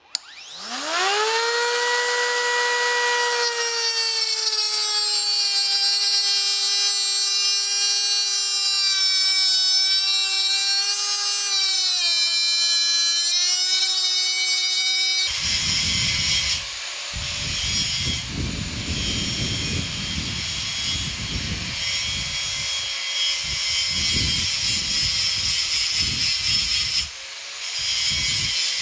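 Electric angle grinder spinning up to a steady high whine, its pitch sagging briefly as it bites into metal clamped in a vise. About halfway through the sound turns to a rough, uneven grinding of the disc against the metal.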